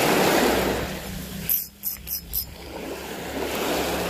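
Small waves breaking and washing up a sandy, pebbly beach, loudest at the start and again near the end, with a few short high crackles about a second and a half in.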